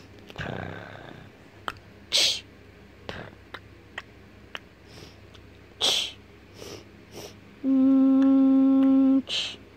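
A person's short breathy sniffs and a few faint clicks, then a steady hummed note, "mmm", held for about a second and a half near the end.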